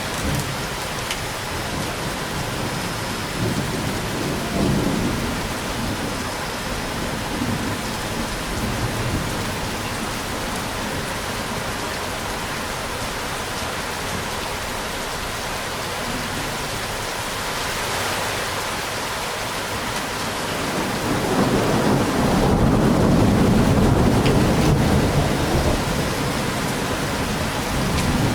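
Steady rain falling, with low rolls of thunder rumbling under it: a small roll about four seconds in, and a longer, louder rumble building about three quarters of the way through before fading.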